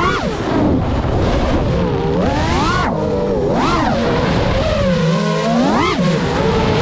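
The brushless motors and propellers of a GEPRC Mark 5 FPV freestyle quadcopter whining, the pitch swooping up and down several times as the throttle is punched and let off. It is heard through the quad's own onboard GoPro microphone.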